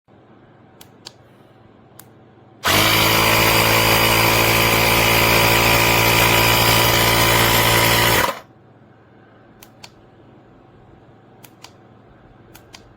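Cordless portable tire inflator's compressor running steadily for about five and a half seconds, then cutting off suddenly, with a few light clicks of handling before and after.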